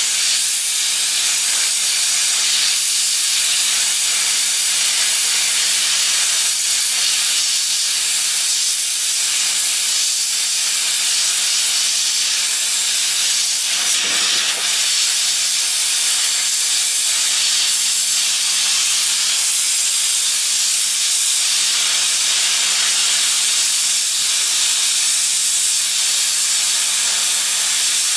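Hot-air plastic welding gun blowing a steady hiss of compressed air from its nozzle while welding polyethylene, with a steady low hum underneath.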